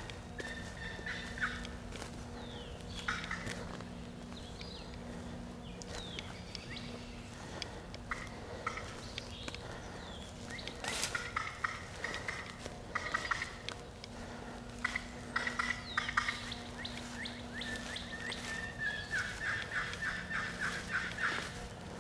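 Hunter's turkey call run as hen turkey yelping and cutting: several quick runs of rapid notes, the longest near the end. Songbirds chirp faintly behind.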